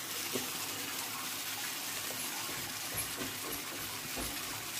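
Masala-coated pearl spot fish (karimeen) shallow-frying in coconut oil over a medium flame: a steady sizzle with faint scattered crackles.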